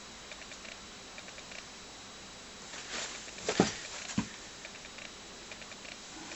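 Small clicks and scrapes of a tool working the plastic tabs of an ALPS key switch housing as they are prised open. Faint ticking throughout, with a few louder clicks about three to four seconds in.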